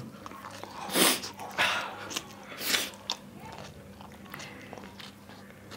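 A man's loud, breathy huffs and hisses through the mouth, three of them in the first three seconds, from the burn of very spicy noodles; a short click follows, then it goes quieter.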